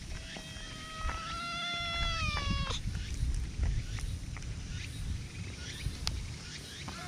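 A cat meows one long meow lasting over two and a half seconds, holding its pitch and then dropping at the end; another meow begins just before the end.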